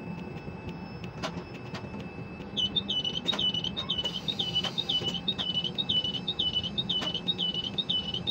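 Quay container crane's electronic warning beeper, starting about two and a half seconds in and repeating a short high chirp about twice a second, over a steady low machinery hum from the crane, with a few sharp clicks.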